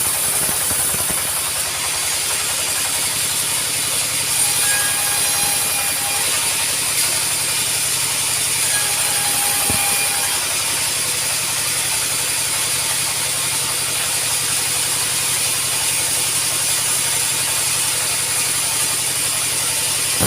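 Sawmill machinery running steadily, a fast even rattle under a high hiss.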